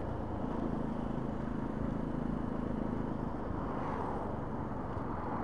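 Benelli TNT 125's single-cylinder engine running steadily while the motorcycle is ridden along, with no changes in pitch.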